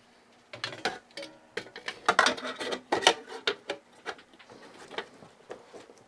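Irregular clicks, knocks and scraping from hands handling a refrigeration condenser fan mounted in a stainless steel plate and working it on the fridge's compressor sled.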